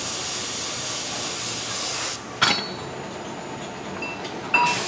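Gravity-feed air spray gun hissing as it sprays paint onto a steel tractor top link. The hiss cuts off just after two seconds in and a sharp metal clink rings out. Near the end another clink sounds and the spraying hiss starts again.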